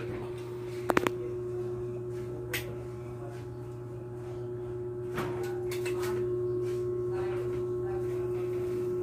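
A steady hum at one pitch underlies a few sharp clicks from a caulking gun being worked to apply sealant around a window frame: a quick cluster of clicks about a second in, then single ones later.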